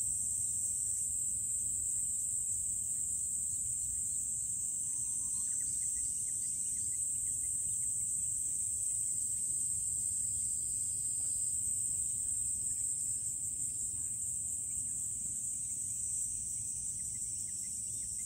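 A steady, high-pitched drone of insects singing in the trees, with a few faint bird chirps.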